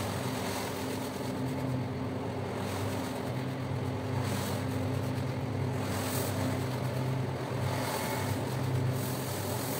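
Single-disc rotary floor scrubber running with a steady motor hum, its rotating brush scrubbing a foam-covered rug with a wet brushing noise that swells now and then.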